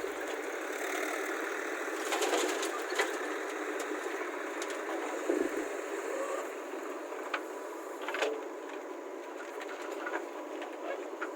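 Diesel engine of earthmoving machinery running steadily, with a few sharp clanks and one dull thump.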